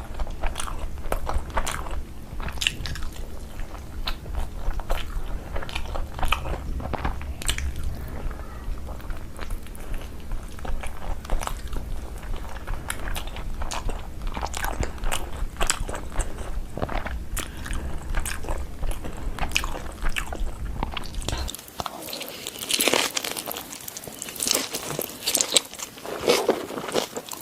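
Close-miked chewing and biting of food, with frequent short crisp crunches. A low steady background hum drops out near the end.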